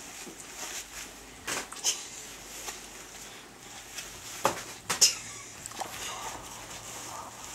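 Disposable diapers rustling and crinkling as a toddler grabs and shakes them, with a few sharp crackles, the loudest about four and a half and five seconds in.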